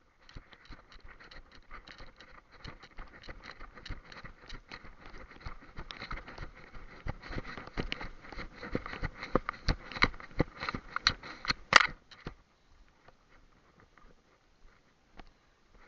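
Close rustling and crackling, many small irregular crackles that build over about twelve seconds to one loud burst, then suddenly fall away to a few faint ticks.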